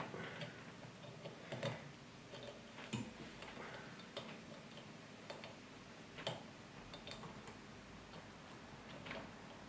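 Faint, sparse metallic clicks, a second or more apart at irregular intervals, as an Allen key engages and tightens the small grub screw that locks a chrome lever handle onto a kitchen tap's new valve head.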